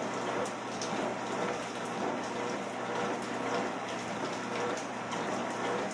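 Steady rain falling, with a low steady hum underneath from a running treadmill.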